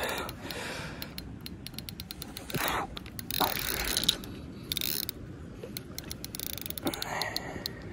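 Fishing reel working against a hooked carp: a run of small, irregular mechanical clicks from the reel's gears and ratchet, with a few short rustling noises between them.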